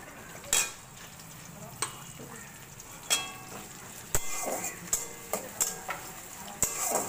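Sliced onions sizzling in hot oil in a kadai, with a metal spatula scraping and knocking sharply against the pan at irregular intervals as they are stirred.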